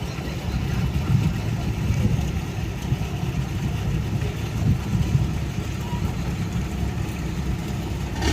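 Hino six-cylinder diesel engine of a cargo boat running steadily at low revs, a low, even drone.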